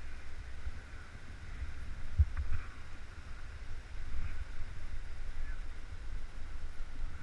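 Wind buffeting a helmet-mounted action camera's microphone: a low, uneven rumble, with one sharper knock about two seconds in.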